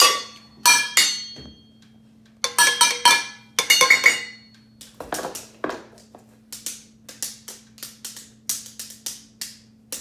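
Homemade drums of empty steel food cans struck with sticks: quick runs of metallic, ringing hits, a short pause, then a steadier run of lighter taps, about three a second, through the second half.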